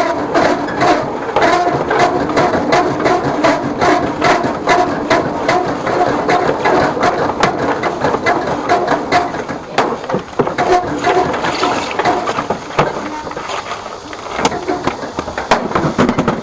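Sewer jetter's high-pressure hose being wound back onto its hose reel, with rapid irregular clicking over a pulse that repeats about two to three times a second.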